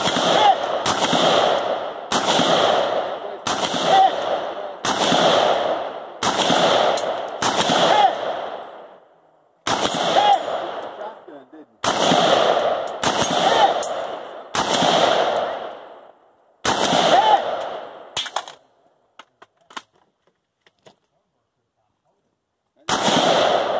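Gunshots in a timed string of about a dozen single shots, roughly one a second, in runs broken by short pauses, each echoing for about a second. A few faint clicks come during the longest pause, then one last shot near the end.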